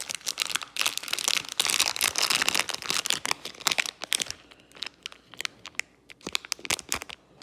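Packaging crinkling and crackling as it is handled and opened, dense for the first few seconds and then thinning to scattered crackles.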